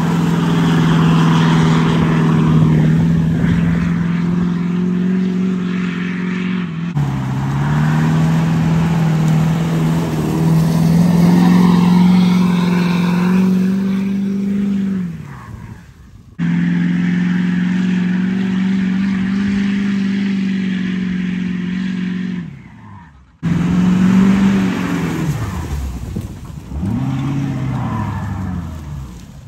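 Lifted Ford F-450 on 53-inch tyres revving hard and holding high revs as its tyres spin and churn through mud. The revs fall away and climb again several times, and the sound cuts off suddenly twice.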